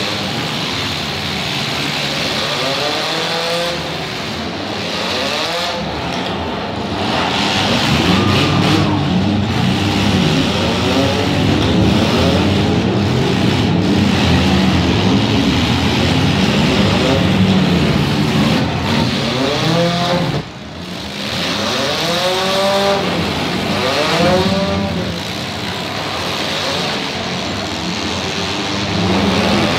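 Demolition derby cars' engines running and revving hard together, with repeated rising revs as the cars push and ram in the arena.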